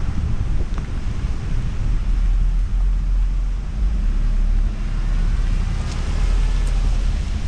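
Wind buffeting the microphone of a camera on a moving car's roof, a heavy fluctuating rumble, over a steady hiss of tyres on wet pavement.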